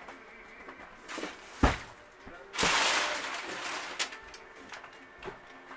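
Cardboard boxes and packing being handled: one sharp thump about a second and a half in, then a second or so of loud rustling and crumpling of brown kraft packing paper, with a small knock at its end.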